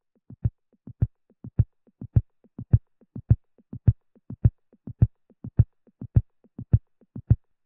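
Heartbeat sound effect: a steady run of paired low thumps, a softer beat followed by a louder one, a little under two beats a second.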